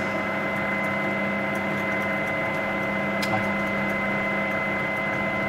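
Steady hum with several fixed tones, and a few faint clicks, the clearest about three seconds in.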